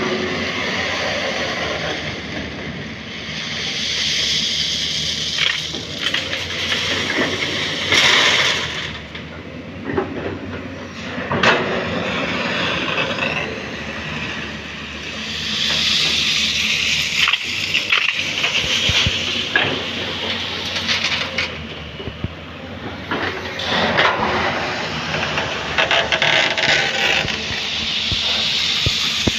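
Hydraulic excavator's diesel engine running steadily while it loads a tipper truck, with repeated spells of rushing, scraping noise as loads of soil pour in, and a few sharp knocks.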